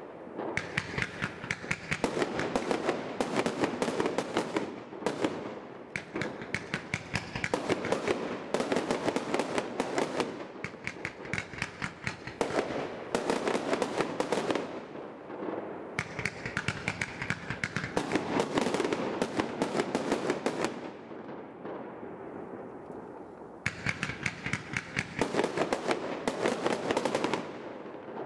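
A 100-shot 40 mm display fireworks cake firing: launches and shell bursts crack many times a second in clusters, with a short lull about three-quarters of the way through.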